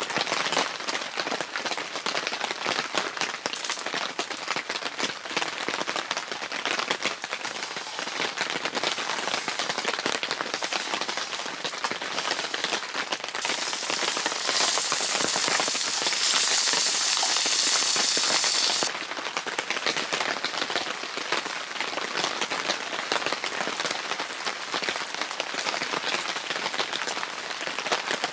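Steady rain pattering on the tent shelter's fabric. From about 13 to 19 seconds a louder, bright scraping hiss joins it: a metal spatula scraping burnt residue off the iron griddle.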